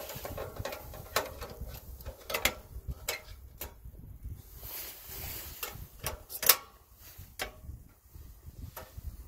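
A metal gas cartridge being fitted into a portable cartridge camping stove: scattered clicks and knocks of the can against the metal housing, the loudest about two-thirds of the way through. Wind rumbles on the microphone underneath.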